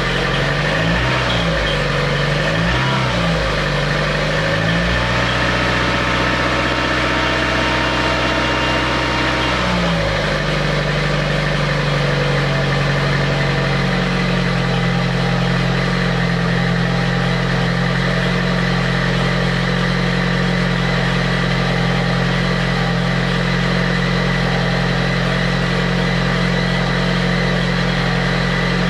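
Cold 16-valve Lada Priora engine, blipped about three times and held at raised revs for a few seconds before settling back to a steady idle, with a steady whistle from the timing-belt area. The whistle appears only on a cold engine in frost and is not changed by revving or by electrical load; the owner suspects the timing-belt rollers, water pump or alternator belt.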